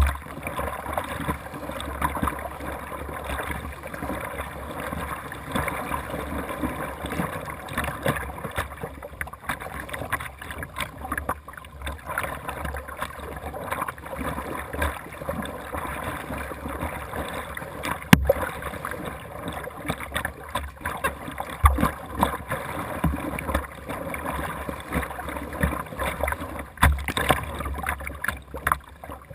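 Kayak paddle strokes splashing and water sloshing against the bow of a plastic Jackson Dynamic Duo whitewater kayak, close to the microphone, in an uneven rhythm of roughly one stroke a second. A single sharp knock sounds about two-thirds of the way through.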